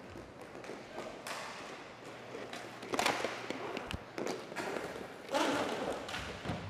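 Roller hockey play picked up on a goalie's body mic: scattered thuds and taps of goalie pads, sticks and puck on the rink. There are two louder rushes of scuffing noise, about three seconds in and again near the end.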